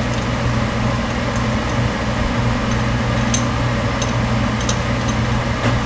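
A steady low hum from a running appliance motor, with a few faint light clicks in the second half as the metal lure mold is handled and fitted back together.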